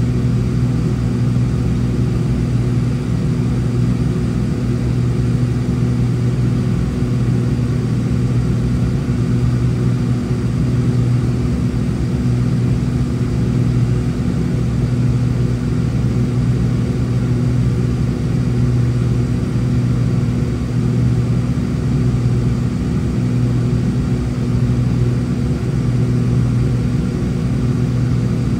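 Cabin drone of a Cessna 402C's twin piston engines and propellers running at steady power, heard from inside the cabin: a loud, even, low hum that holds one pitch throughout.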